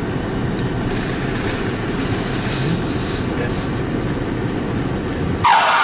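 Recorded train sound effect played loud through a car stereo: a steady rumble of rolling rail cars, broken about five and a half seconds in by a sudden loud high screech.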